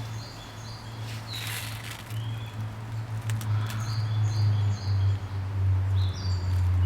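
Common kingfisher giving short, high, shrill call notes in several quick series, over a steady low hum that grows louder toward the end. A brief rushing noise comes about one and a half seconds in.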